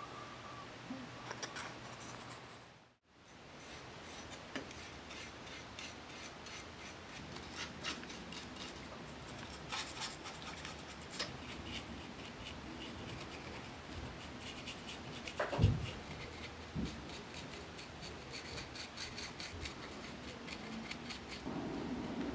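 Paintbrush bristles rubbing and scratching across a small wooden model part in many short strokes as black paint is brushed on. A single sharp knock comes about two-thirds of the way through.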